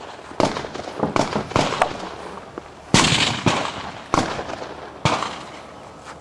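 Rifle shots fired at an uneven pace during a timed stage, several in quick succession and then more spaced out, each a sharp crack with a short echo trailing off; the loudest comes about three seconds in.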